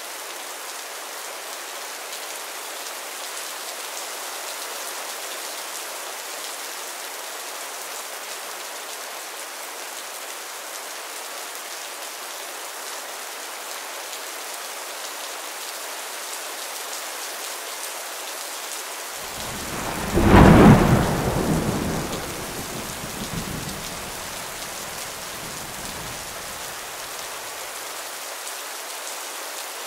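Steady rain falling, with a single thunderclap about two-thirds of the way through that rumbles away over several seconds. The thunder is the loudest sound.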